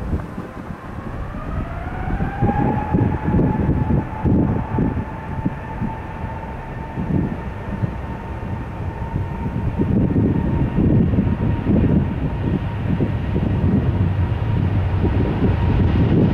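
Jet airliner's engine whine rising in pitch over the first two seconds or so, then holding steady, over an uneven low rumble.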